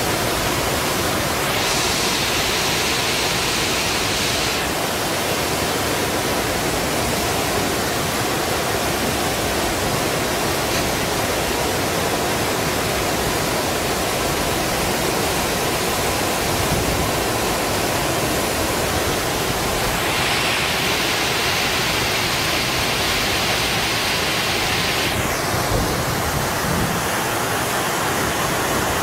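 Floodwater torrent rushing steadily down a street, a loud continuous noise of churning water. Twice, near the start and about two-thirds through, a brighter hiss rises over it for a few seconds.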